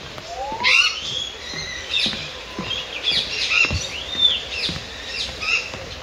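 Several birds chirping and whistling, many short calls overlapping, with a rising whistled call about half a second in.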